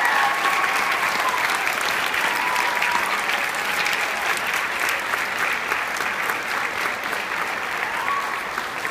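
Audience applauding: a dense patter of many hands clapping, slowly fading over the last few seconds.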